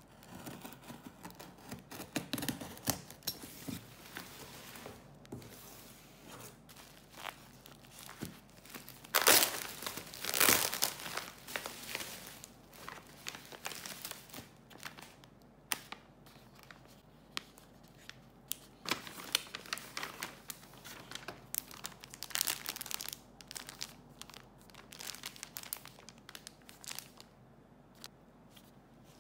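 Unboxing a parcel: packing tape being cut and torn off a cardboard box, then bubble wrap and plastic packaging crinkling and rustling as the items are unwrapped. The sound is irregular and crackly, with the loudest tearing and crinkling about ten seconds in.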